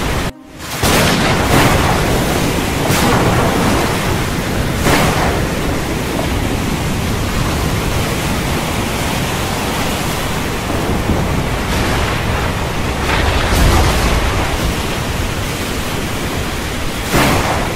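Storm ambience: a loud, dense rush of wind and water noise that swells in repeated surges, with a deep low rumble about two-thirds through. It drops out for a moment just after the start.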